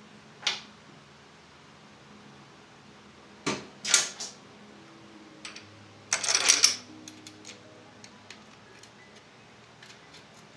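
Metal tools and hardware being handled: a sharp clink about half a second in, two more around four seconds in, and a longer rattling clatter about six seconds in. Quiet background music plays underneath.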